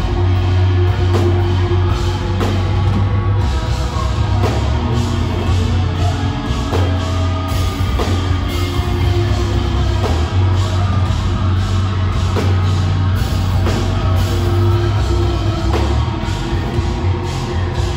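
Live heavy rock band playing: distorted electric guitars over a steady low bass with a drum kit, heard through the venue's amplification.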